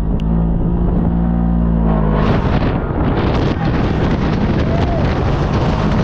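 Off-road vehicle engine running steadily. About two seconds in, a loud rushing noise joins it.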